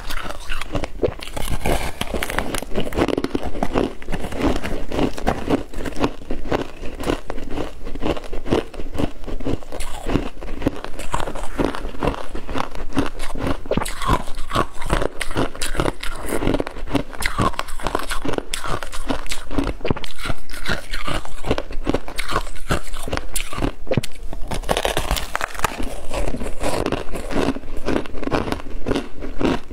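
Close-miked biting and chewing of a thick slab of ice crusted with freezer frost: a dense, unbroken run of small crisp crunches.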